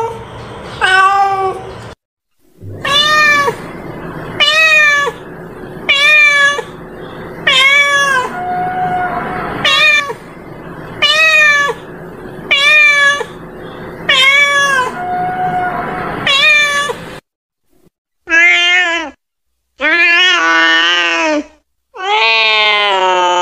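Domestic cat meowing over and over: short meows, each rising then falling, about every second and a half. After a brief silence about three-quarters of the way through come a few louder, longer meows, the last one drawn out.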